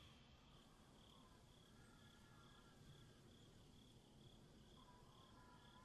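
Near silence with faint crickets chirping, a soft pulse of about three chirps a second.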